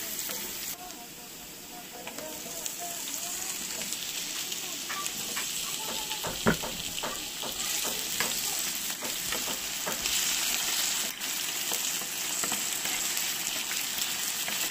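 Chopped onion and garlic sizzling in hot oil in a frying pan, stirred with a wooden spatula. A few sharp knocks around the middle, as diced potatoes go into the pan, after which the sizzling is louder.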